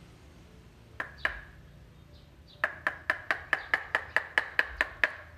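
Mallet striking a steel chisel to carve the wood of a red-bud ficus bonsai trunk: two knocks about a second in, then a quick run of about fourteen blows, some five a second, each with a short metallic ring.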